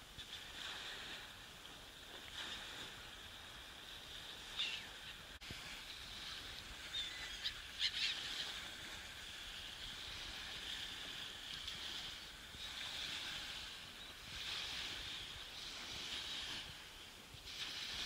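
A flock of black-headed gulls calling overhead with overlapping harsh cries, a few louder sharp calls standing out about halfway through.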